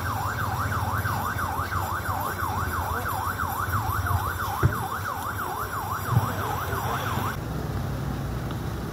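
Vehicle siren in a fast yelp, its pitch sweeping up and down about three times a second over a low engine rumble, cutting off suddenly near the end. Two brief knocks sound in the second half.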